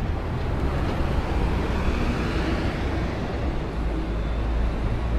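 Busy city street ambience: a steady, unbroken wash of road traffic with a strong low rumble.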